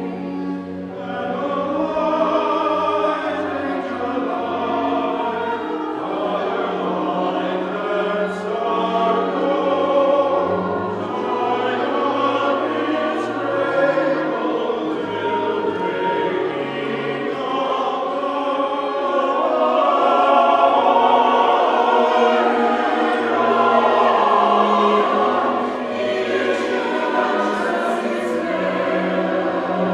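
Choir singing sacred music in parts, with long held notes that swell slightly toward the middle and end.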